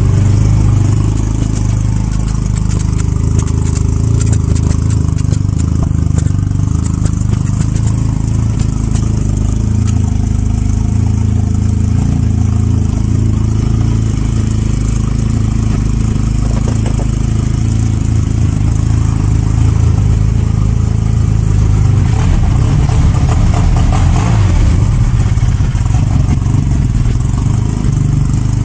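2013 Arctic Cat XF1100 Turbo snowmobile's turbocharged four-stroke three-cylinder engine running at a steady idle, through a homemade stainless exhaust with a muffler.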